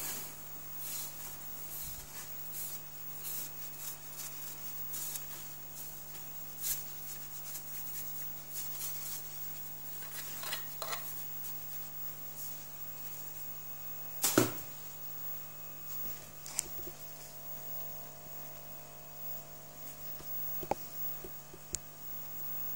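24-inch Värnamo metal shaper running: a steady low hum with irregular short ticks and clicks, thickest in the first half, and one louder knock about halfway through.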